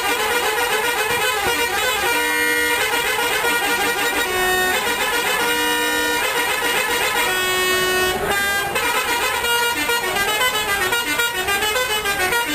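Bus telolet horns, the multi-note melody air horns of Indonesian buses, sounding over one another in a constant din. Clear held notes at different pitches break out in short phrases about two, four and a half, five and a half and seven and a half seconds in.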